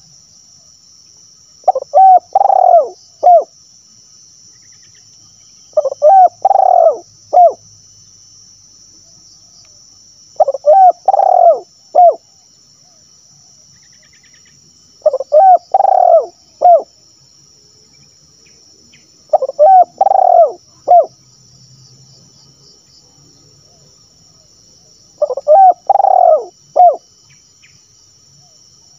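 Spotted dove (tekukur) cooing its sibero-style song: six phrases about four to five seconds apart, each a quick run of several coo notes.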